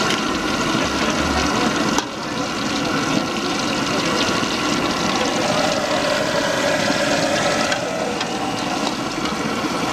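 Jalebi frying in a large wok of hot oil, sizzling steadily, over a low running hum of street noise. A sharp click and brief drop in level come about two seconds in.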